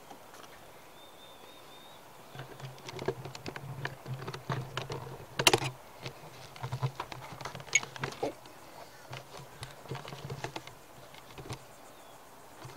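Irregular light clicks, taps and crinkles of plastic being handled: a funnel with a clear plastic tube being fitted and fastened with a plastic wrap and ties. The clicking starts a couple of seconds in, comes in clusters with a sharper tap about halfway, and has a low steady hum under much of it.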